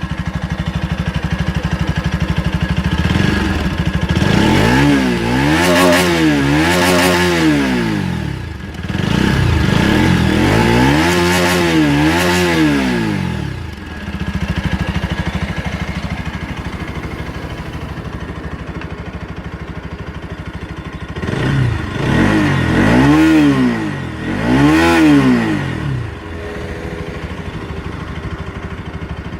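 Single-cylinder motorcycle engine idling with a fast, even exhaust pulse. It is revved twice in longer climbs about four and ten seconds in, then given two quick blips near the end, dropping back to idle each time.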